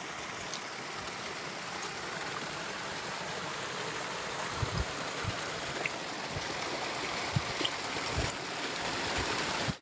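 Small waterfall pouring from an arched stone culvert outlet into a pool: steady splashing and rushing water, getting slightly louder toward the end. A few soft low thumps in the second half.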